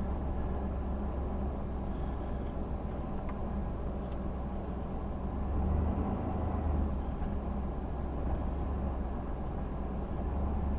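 Steady low engine and road rumble heard inside the cabin of a 2012 Chevrolet conversion van on the move.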